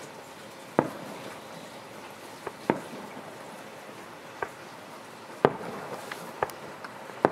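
Aerial firework shells going off as a series of sharp bangs, about seven of them at irregular intervals, the loudest about a second in and about five and a half seconds in, some trailing a short echo, over a steady hiss.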